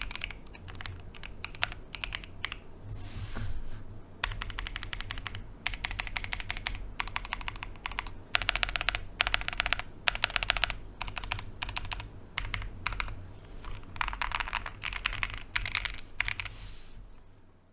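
Typing on a Cidoo V65 Pro mechanical keyboard in stock form: rapid runs of key clicks in bursts with short pauses between them, fading out near the end.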